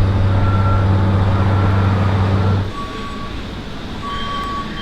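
A steady low mechanical hum that cuts off abruptly about two and a half seconds in, followed by quieter background noise with a short electronic beep repeating about once a second.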